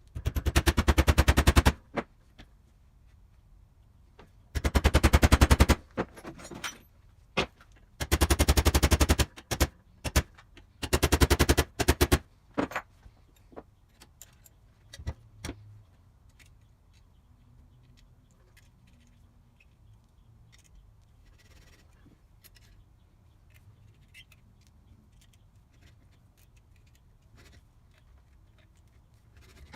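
A power tool rattling in four short bursts of rapid, evenly spaced impacts, each about a second and a half long, followed by scattered light clicks and taps of metal parts being handled.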